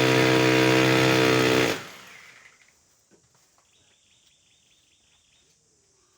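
Electric power drill running at a steady speed, then switched off less than two seconds in and spinning down. Then near quiet, with faint high chirping.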